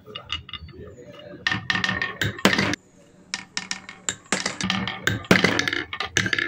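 Glass marbles rolling and clacking down a wooden marble run and dropping into a wooden tray: rapid clattering knocks of glass on wood. The knocks come in two dense runs, one starting about a second and a half in and another from about four seconds in.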